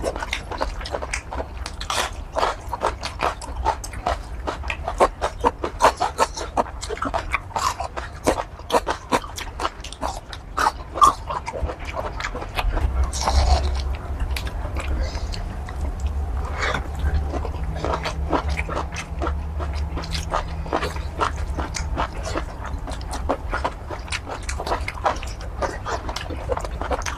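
Close-up chewing and biting of curry squid, a dense, irregular run of wet mouth clicks and smacks.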